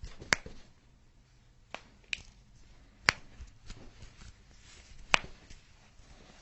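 Sharp single cracks of joints popping under a chiropractic adjustment, a handful of separate pops a second or two apart.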